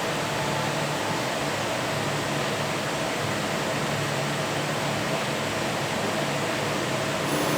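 Steady machine-shop noise: an even hiss over a faint low hum from running machinery, with a thin high whine coming in near the end.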